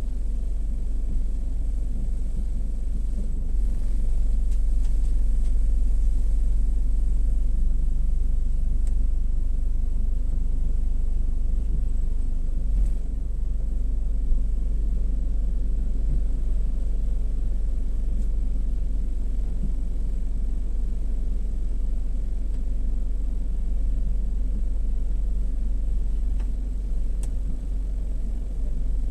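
Automatic gas-station car wash running with a steady low rumble.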